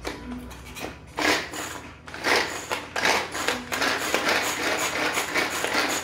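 Manual pull-cord food chopper being yanked again and again, its blades chopping garlic cloves inside the plastic bowl. There are three spaced pulls in the first three seconds, then quicker pulls one after another.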